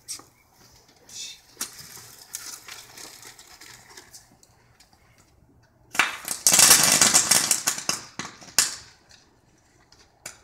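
A firework going off: a soft hiss, then about six seconds in a loud burst of rapid crackling and popping that lasts nearly three seconds.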